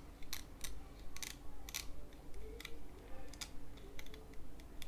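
Irregular small plastic clicks and taps, about a dozen, as fingers handle and turn the scroll-wheel encoder of an opened Logitech G703 mouse.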